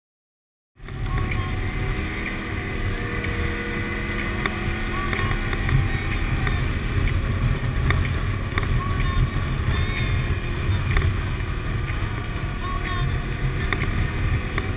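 ATV engine running steadily at road speed, mixed with wind rushing over the microphone; it cuts in suddenly about a second in.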